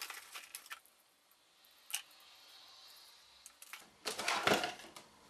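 Hard plastic parts being handled, clicking and rattling. A few clicks in the first second and one near two seconds in, then a burst of clattering near the end.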